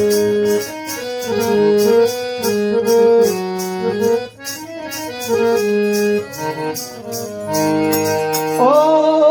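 Harmonium playing a melodic interlude between sung verses of a Gujarati devotional bhajan, with small hand cymbals keeping time at about three strokes a second. Near the end a singer's voice comes in on a rising, wavering note.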